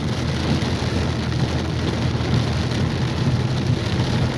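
Heavy rain pouring down, a steady dense hiss with a low rumble beneath it.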